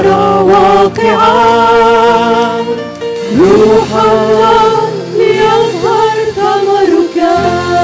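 Arabic Christian worship song: a voice singing long, drawn-out notes over instrumental backing, the singing stopping near the end while the accompaniment plays on.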